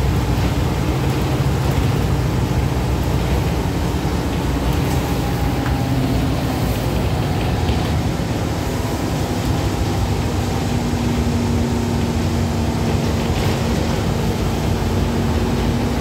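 Cabin sound of a 2012 Gillig Advantage Low Floor transit bus under way: a steady engine drone and road noise. A low whine comes in about halfway through and holds to the end.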